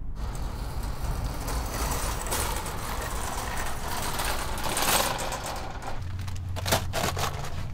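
Wire shopping cart rolling over asphalt, its wheels and basket rattling steadily, followed near the end by a few sharp clicks and knocks.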